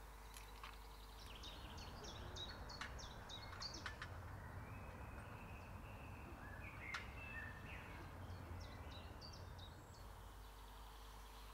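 Faint woodland birdsong: a small songbird's short, high-pitched phrases, one spell in the first few seconds and another about two-thirds of the way in, with a few soft clicks and a low rumble beneath.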